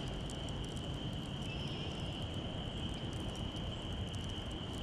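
Outdoor ambience: a steady, high-pitched chirring chorus of calling animals, with a low rumble of wind-like noise beneath.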